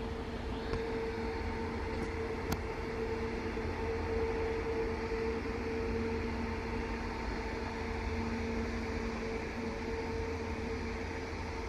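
Airbus A350's Rolls-Royce Trent XWB jet engines at idle thrust while the airliner taxis, a steady rushing hum with a constant low whine. A single faint click sounds about two and a half seconds in.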